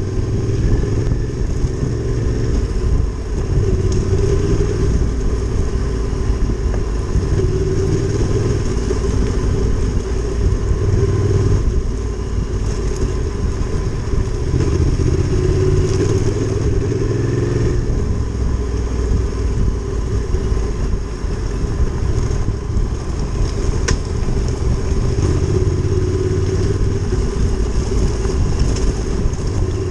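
Adventure motorcycle engine running steadily under way on a trail, its note rising and falling a little with the throttle.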